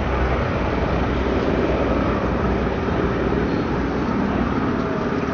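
Aircraft engine drone, steady and continuous.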